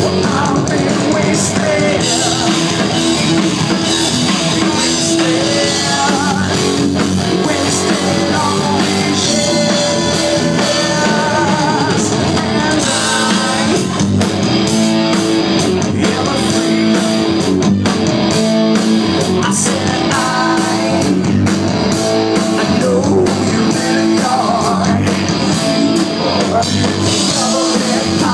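Live rock band playing loud: electric guitar, drum kit and a singer.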